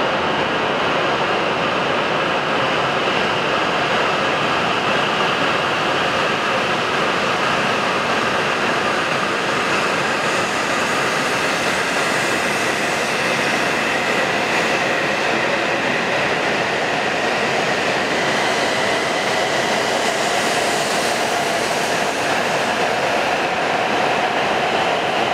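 W7 series Shinkansen train pulling out and slowly accelerating past the platform: a steady rush of running noise with a faint whine that rises slowly in pitch.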